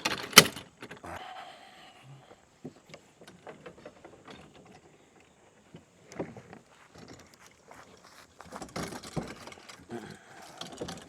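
Kayak landing-gear wheels and legs clacking sharply twice as they are set down, then scattered knocks and rattles as the kayak is rolled along on its wheels.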